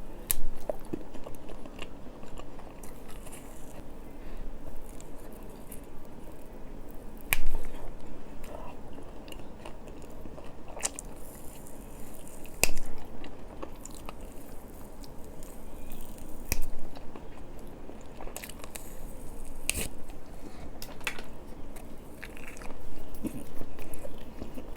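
Close-miked biting and chewing of a rabbit-shaped marshmallow candy: soft mouth sounds with sharp clicks every few seconds.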